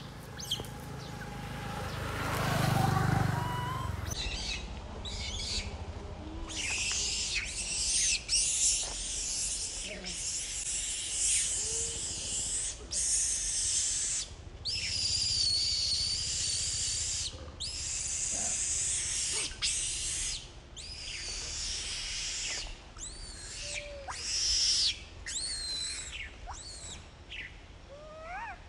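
Baby macaque crying: a run of short, high-pitched, arching screams, repeated again and again with brief breaks.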